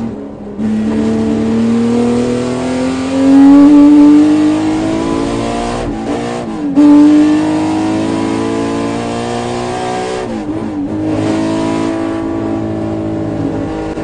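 Ferrari 250 GTO's 3.0-litre V12 pulling hard, heard from inside the cockpit, its pitch climbing steadily through each gear. Brief breaks for upshifts come just after the start, about six seconds in and about ten seconds in, each dropping the pitch before it climbs again.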